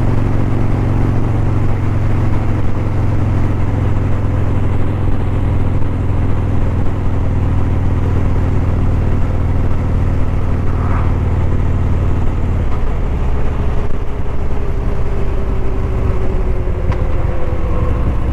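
Harley-Davidson Street Glide's Milwaukee-Eight V-twin running steadily on the road with wind rush, picked up by a helmet-mounted microphone. About two-thirds of the way through, the engine note drops and then eases lower over the last few seconds.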